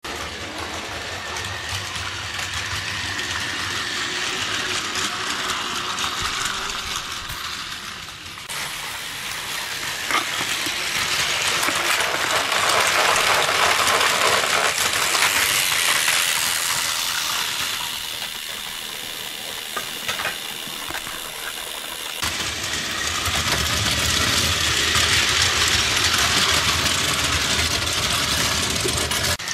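Battery-powered Plarail toy train of the E001 Shiki-shima running on plastic track: a continuous whir of its small motor and gears with the wheels rattling on the rails. It grows louder and fades twice as the train passes, with two abrupt changes in the sound.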